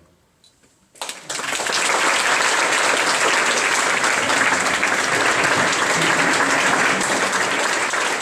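Audience applause starting suddenly about a second in, then holding steady and loud.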